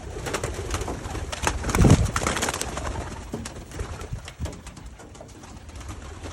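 White doves cooing in a small loft, with many scattered clicks and knocks from the birds moving about and a louder low thump about two seconds in.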